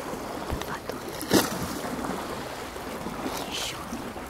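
Sea waves washing steadily at the shore, with a single sharp knock about a second and a half in.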